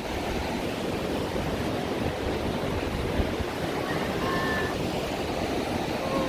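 Ocean surf washing onto the beach, a steady rush of noise.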